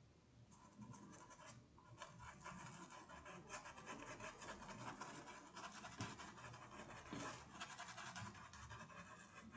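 Paintbrush scrubbing paint into a cotton tea-towel fabric, a faint dry scratching of quick small strokes that starts about half a second in.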